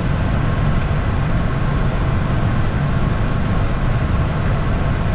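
Steady cockpit noise of an Airbus airliner on short final approach: an even low rumble with a rush of air over it, without change.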